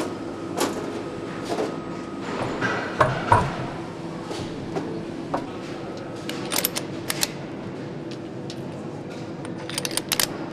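Scattered sharp metallic clicks and knocks over a steady machine hum, with a small cluster of knocks about three seconds in and quick runs of clicks later on: parts and tools being handled on a motorcycle engine assembly line.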